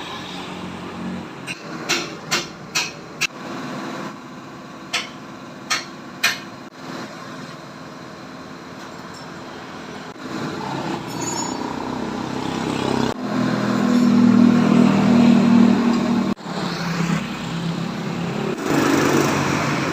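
Several sharp metallic knocks and clinks of tools on a car, then an engine running steadily, growing louder in the second half.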